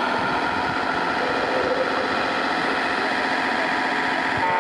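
Radio-controlled model trucks and machines running: a steady whirring of their electric motors and gears, with a steady whine joining near the end.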